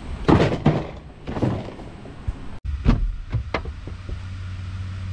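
Clunks and knocks of gear being handled at a pickup truck's bed. Then come a few sharp clicks and knocks over a steady low hum.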